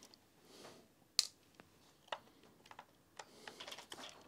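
Faint, scattered clicks and ticks of a small screwdriver working tiny screws out of the back plate of a Commodore PET keyboard, with one sharper click about a second in and a run of small ticks near the end.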